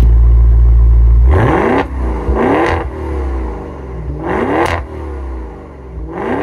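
Twin-turbo Ferrari-derived V8 of a 2024 Maserati Levante V8 Ultima, heard close to its quad exhaust tips: a loud, deep, steady idle rumble, then four quick throttle blips, each rising sharply in pitch and dropping back, the last one starting near the end.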